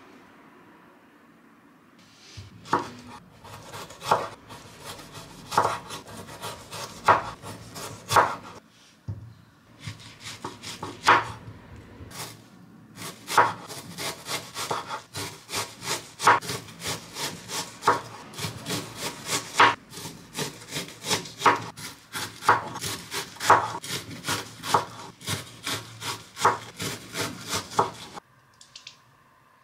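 Santoku knife slicing potatoes and then an onion on a wooden cutting board: a steady run of strokes, each a knock of the blade on the board, coming faster in the second half.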